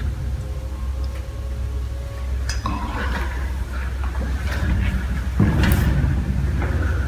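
Footsteps on steel stair treads with scattered knocks and light metallic clinks, over a steady low rumble.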